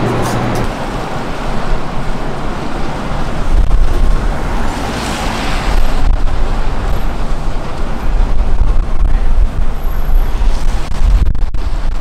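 Street traffic noise: a steady rumble and wash of passing vehicles, with wind buffeting the microphone in uneven low gusts from a few seconds in.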